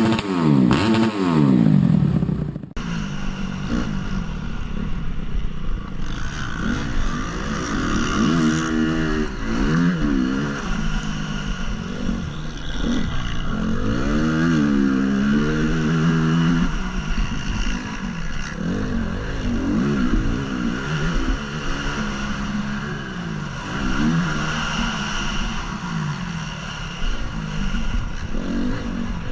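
2014 Honda CRF250 single-cylinder four-stroke motocross engine being ridden hard, pitch climbing as the throttle opens and dropping back on each shift and throttle-off, over and over. The sound changes abruptly about three seconds in.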